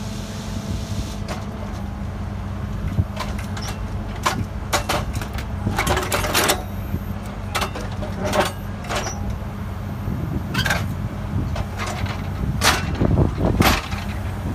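Volvo wheeled excavator's diesel engine running steadily, with irregular sharp metallic clanks from its yellow track-laying attachment handling the rails and sleepers, the loudest near the end.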